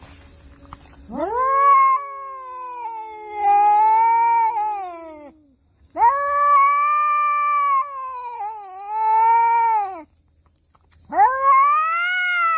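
Domestic cats caterwauling in a standoff: long, drawn-out yowls with wavering pitch, three in a row, each lasting several seconds, the kind of threat call traded before a fight.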